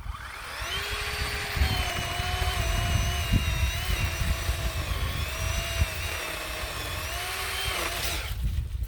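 Worx 40-volt 14-inch cordless chainsaw's electric motor spinning up to a whine and running steadily, its pitch dipping briefly a few times, then winding down near the end when the trigger is let go.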